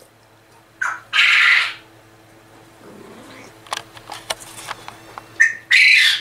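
Caged male quail calling loudly twice, each call a short pitched note running into a harsh rasping call, about a second in and again near the end. Faint small clicks and rustles in between.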